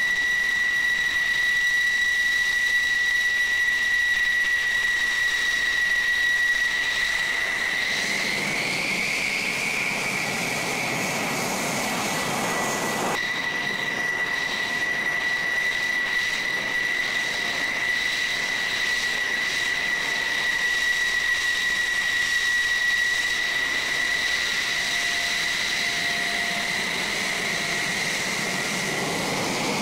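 F-16's single jet engine at taxi power: a steady high-pitched whine. From about eight seconds in, a broader rushing jet noise swells, with the whine rising slightly, then stops abruptly about halfway through. The whine continues steadily after that.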